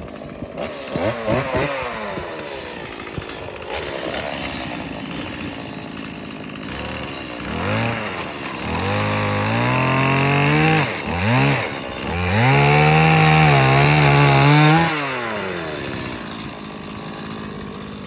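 Stihl chainsaw idling, then revved up in several pulls about halfway through and held at full speed for a few seconds as it cuts through a wooden leg of the chicken coop, the loudest part; it drops back to idle near the end.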